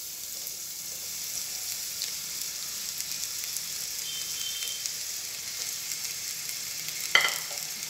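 Chopped onions sizzling as they hit hot oil in an enamel pot: a steady frying hiss with fine crackles. A single sharp knock comes about seven seconds in.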